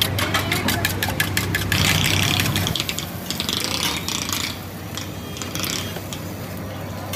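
Rapid, regular clicking of egg being beaten by hand in an aluminium pot, over a steady low hum. Then a metal spatula scrapes and frying hisses on a flat street-food griddle.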